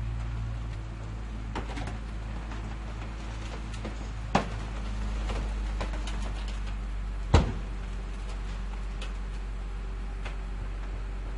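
Garbage truck engine idling steadily, with scattered light knocks and two loud bangs, about four and seven seconds in.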